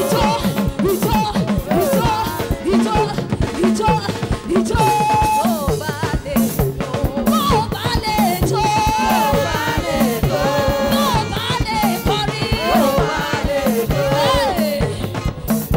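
Live church band playing upbeat gospel music: voices singing over congas, a drum kit and bass guitar, with a steady beat.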